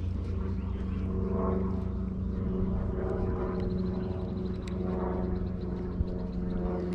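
A steady motor drone: a low hum with a stack of overtones, holding one pitch throughout.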